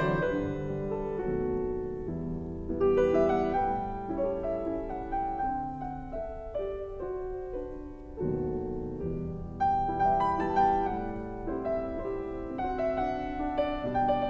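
Background piano music: a melody over chords, with notes struck one after another and left to ring.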